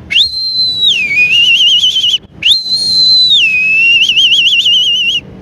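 A man's mouth-whistled imitation of a kite's call, given twice: each call starts as a high steady whistle, then drops lower into a quick wavering trill.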